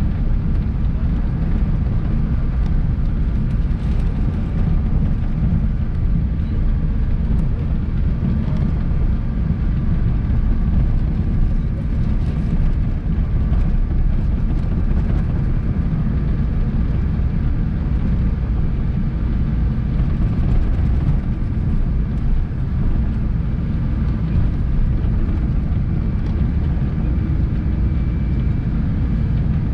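Cabin noise of a Boeing 777-300 airliner taxiing slowly: a steady low rumble of the engines at taxi power and the rolling gear, with a faint steady whine above it.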